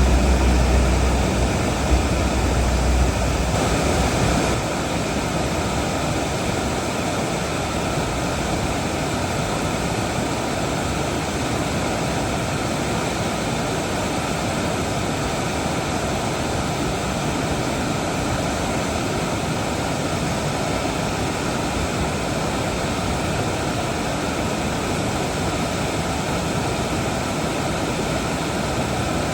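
Steady rushing of water, an even hiss without pauses, with a low rumble under it for the first four seconds or so.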